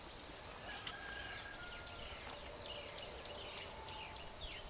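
Small birds chirping and calling against a steady hiss of field ambience: many quick falling chirps and a few thin held whistles.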